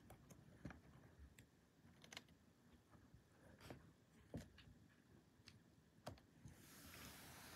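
Faint, scattered taps and clicks of two cats' paws and claws on a hardwood floor as they swat at each other. Near the end comes a soft, hissy rustle lasting about a second and a half.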